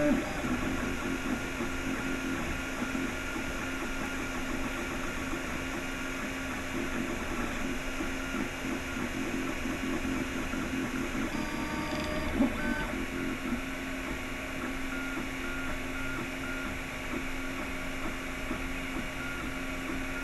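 Anet A8 3D printer printing: its stepper motors whine in short, changing tones as the print head moves back and forth, over the steady whir of the hotend cooling fan.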